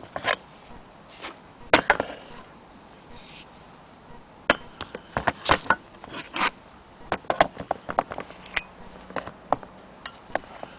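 Irregular clicks and knocks from the cast-iron handwheel of a Willcox & Gibbs sewing-machine hand crank as it is gripped, turned and rocked on its wooden base. The knocks come in uneven clusters, never settling into a steady turning rhythm.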